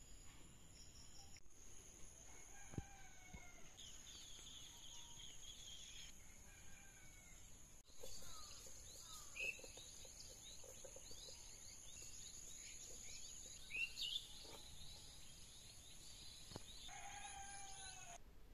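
Faint ambience of insects trilling steadily at a high pitch, with birds calling here and there.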